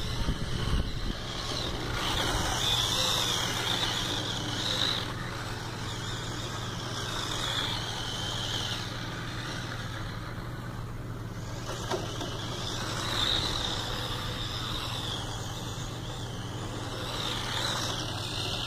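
Electric motor and gear drive of a Tamiya TL-01 radio-controlled rally car whining as the car speeds past several times. The whine rises and falls in pitch, over a steady low hum.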